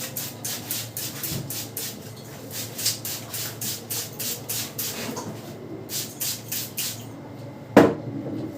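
Barber's hands working a man's head during a head massage: quick, even rubbing or patting strokes through the hair, about four to five a second with a short break midway, then a single loud sharp smack near the end.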